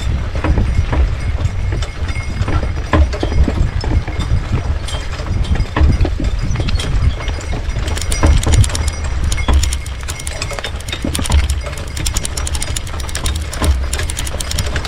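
A team of two horses walking in harness: hooves clopping and harness clinking over a steady low rumble, the clicking and rattling growing denser in the second half.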